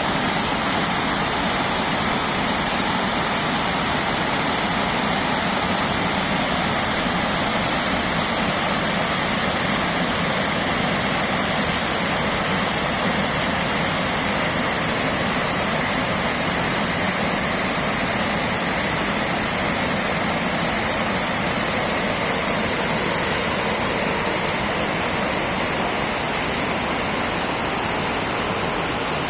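Waterfall pouring, a steady, loud rush of falling water.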